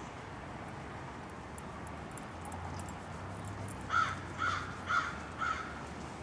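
An animal calling four times in quick succession, about half a second apart, starting about four seconds in.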